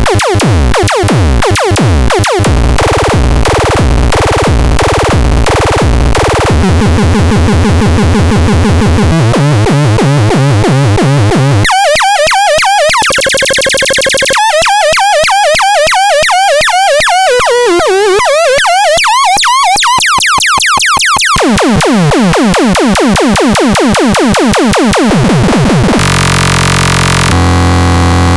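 Grove Machine C 202 electronic sound machine playing synthesized patterns that change abruptly every few seconds. It moves from rhythmic pulsing, to warbling chirps around the middle, to a dense low buzz near the end.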